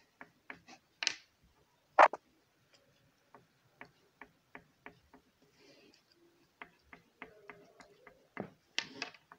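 Oil pastel stroked over card paper in short, quick strokes, each one a small scratchy tick, irregular at about two or three a second. One louder knock comes about two seconds in.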